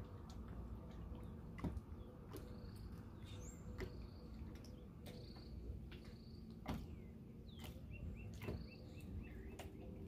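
Birds calling faintly with short high whistles and, about eight seconds in, a quick run of short chirps, over a low steady rush of wind or water with scattered sharp clicks.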